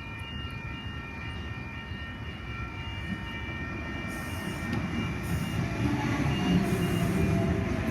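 Oscar (H-set) double-deck electric train at the platform: steady electrical whine over a low rumble that grows louder toward the end, with a faint falling tone in the last couple of seconds.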